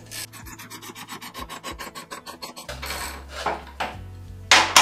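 Scissor jack under a motorcycle being cranked to lift the front wheel off the ground: a fast, even rasping clicking, about ten clicks a second, for the first two and a half seconds, then a few scrapes and one loud scrape near the end.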